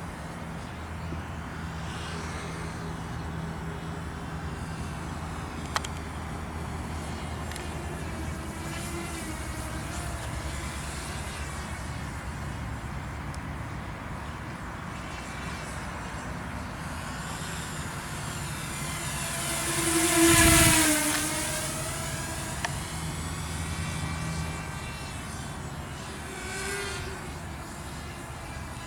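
Walkera F210 racing quadcopter's electric motors and propellers buzzing in flight. It sweeps close by about two-thirds of the way through, swelling sharply and falling away, and makes a fainter pass near the end.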